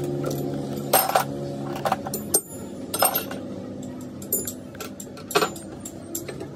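Sharp metallic clinks and knocks of a steel wrench and coupling parts being handled on a metal workbench, about four louder ones with a short ring, over a steady low hum.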